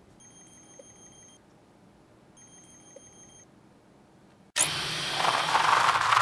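RF signal detector's alert tone sounding as it picks up a bug transmitter: two faint high-pitched beeps, each a little over a second long, about a second apart. About four and a half seconds in, a loud rushing noise cuts in suddenly and carries on.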